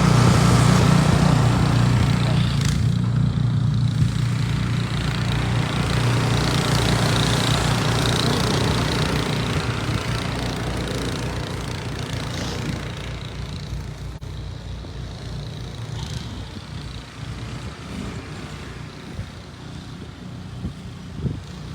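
Snow blower engine running steadily, its sound fading as the machine moves away.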